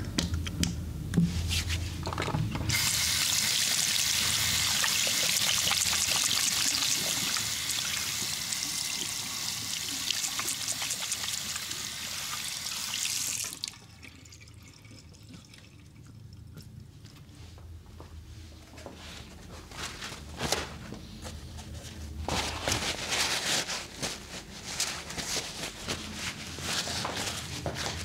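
Water running steadily from a tap for about ten seconds, then shut off abruptly, followed by quieter intermittent splashing and dripping as the water is used for washing.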